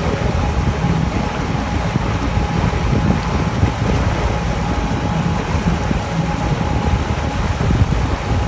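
Wind buffeting the microphone on a moving motorboat, over the steady hum of the boat's engine.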